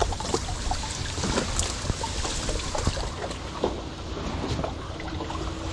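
Water splashing and trickling as a wet fishing net is hauled by hand over the side of a boat, with scattered light clicks and knocks.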